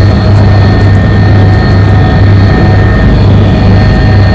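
Helicopter in flight heard from inside its cabin: a loud, steady drone of engine and rotor, with a strong low hum and a thin, steady high whine.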